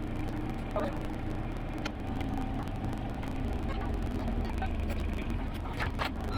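John Deere 17D mini excavator's diesel engine running steadily, with a few short knocks over it.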